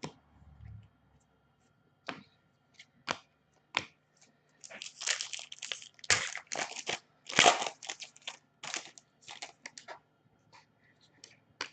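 A trading card pack's wrapper being torn open and crinkled while cards are handled. A few separate light clicks come first, then a dense stretch of crinkling and tearing through the middle.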